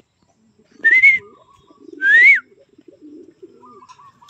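Two short human whistles, the second rising and then dropping, a fancier's call to bring racing pigeons down off the roof and into the loft. Pigeons coo softly underneath.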